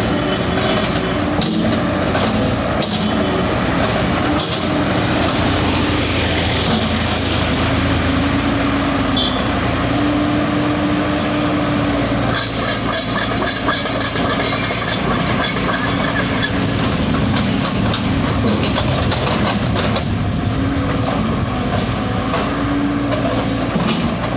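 JCB backhoe loader's diesel engine running under hydraulic load, its pitch rising and falling as the arm works, with scattered knocks and a stretch of harsher rattling noise about halfway through.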